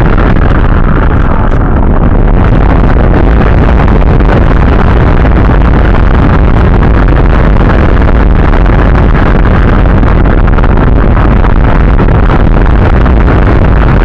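Loud, steady wind rush over the microphone of an onboard camera on an AXN Floater Jet RC plane in flight, mixed with its electric pusher motor and propeller running.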